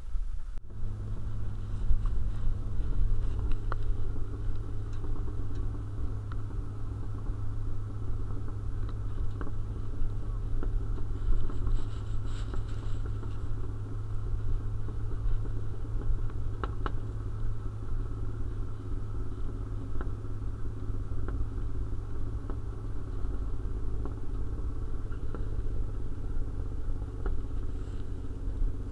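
Jeep engine running at a steady speed while driving, a low even hum with a few light clicks and rattles; it starts about half a second in.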